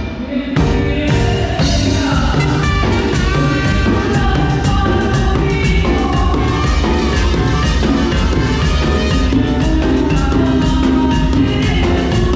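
Live band music with a steady drum beat and a singing voice, recorded through a camera's built-in microphone. The music drops out briefly at the start, then comes back in full.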